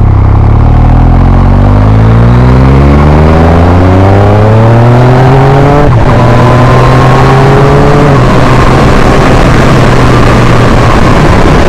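Yamaha MT-09's 847 cc three-cylinder engine with an Akrapovic exhaust accelerating hard through the gears. The revs climb steadily for about six seconds, then the quickshifter makes two clutchless upshifts, about six and eight seconds in, each dropping the pitch without a pause in the power.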